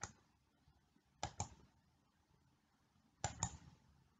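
Computer mouse clicking: one click at the start, then two quick double clicks, about a second and a bit over three seconds in, selecting a drawing tool on screen.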